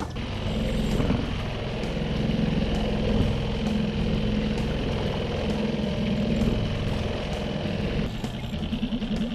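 Suzuki 90 outboard motor running steadily at trolling speed, a low hum with a few held tones; about eight seconds in the low hum turns into a quick, even pulsing.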